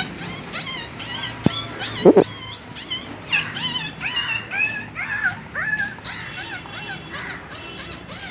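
A man imitating rats fighting with his mouth: a rapid string of short, high squeaks that glide up and down in pitch. A few sharp knock-like pops come about one and a half to two seconds in.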